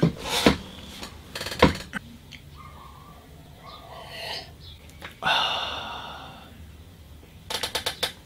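A person sips from a mug, then lets out a long, loud breath that fades away over a second or so. A few knocks come first, as he settles into a chair, and a quick run of clicks comes near the end.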